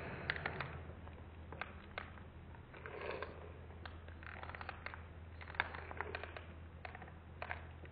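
Faint handling noise: scattered soft clicks and crinkles, over a low steady hum.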